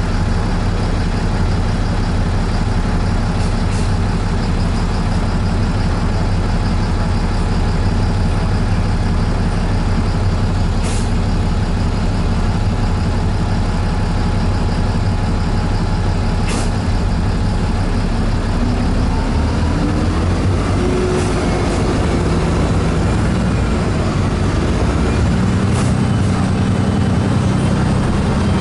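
Diesel engine of the bus being ridden, heard inside the cabin, idling with a steady drone, then rising in pitch as it pulls away about two-thirds of the way through. Two sharp clicks come in the middle.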